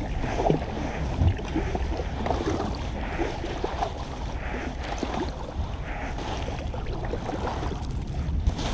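Kayak being paddled, with soft paddle splashes and water sounds, over a steady low wind rumble on the microphone.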